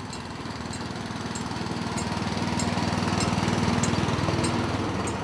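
Small petrol-engined narrow-gauge shunting locomotive running past at low speed, its engine chugging steadily and growing louder, then easing as it goes by. Light regular clicks sound over the engine.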